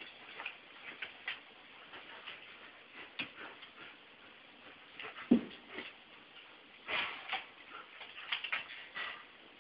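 Light, scattered clicking of dogs' claws on a hardwood floor during a lull in the dogs' play, with one short, louder, low sound about five seconds in.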